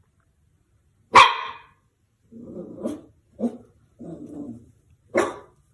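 A dog barking: one sharp, loud bark about a second in and another near the end, with lower, rougher vocal sounds between them.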